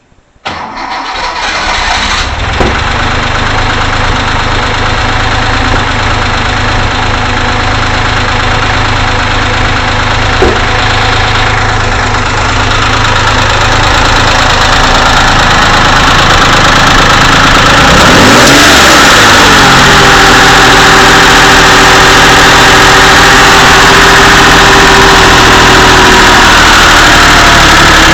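Porsche 911 air-cooled flat-six engine starting about half a second in, then running at idle. About two-thirds of the way through, the engine speed rises and holds at a higher idle. This is a freshly rebuilt engine that the owner says knocks, rattles, ticks and hammers, and is not within factory specifications.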